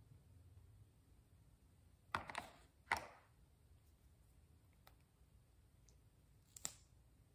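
Small plastic clicks as makeup is handled and a white mascara tube is pulled open: a short cluster about two seconds in, the sharpest click just before three seconds, and one more click near the end.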